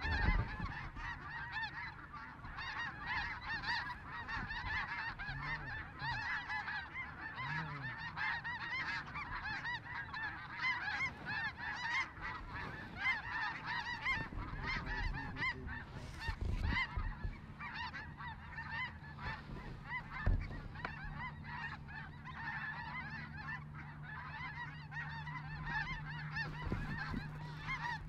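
A large flock of snow geese calling overhead: a dense, unbroken chorus of overlapping high honks and yelps. A low steady hum joins in the second half.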